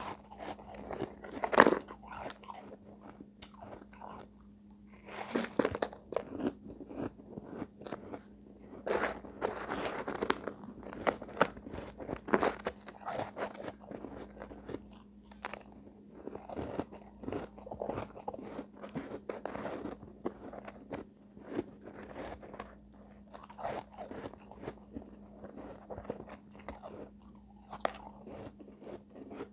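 Refrozen shave ice being bitten and chewed: a dense, irregular run of crisp crunches, with one loud bite about one and a half seconds in.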